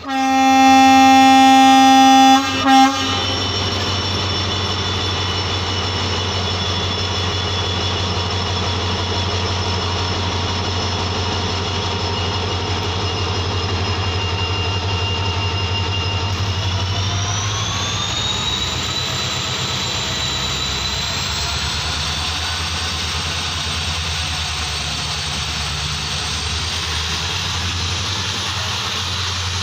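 Horn of a WDP-4D diesel locomotive blowing for about three seconds, followed by a brief second toot. Then its EMD 16-710 two-stroke diesel engine runs with a steady low hum and a high turbocharger whine that rises in two steps partway through as the engine takes power on departure.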